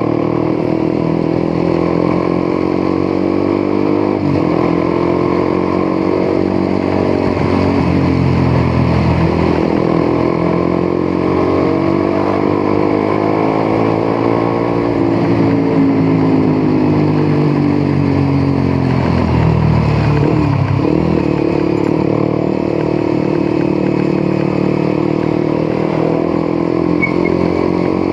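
Honda CBR150R's single-cylinder engine running on the move, its pitch climbing and falling as the bike speeds up and slows, with a dip about two-thirds of the way through before it picks up again.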